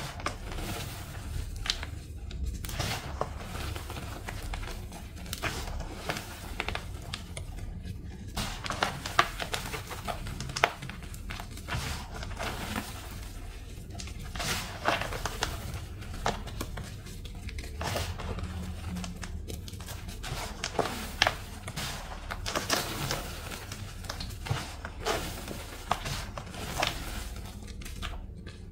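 Thin blocks of reformed gym chalk being crushed and crumbled, a run of crunchy, crackling breaks made of many small sharp clicks, with a few short pauses.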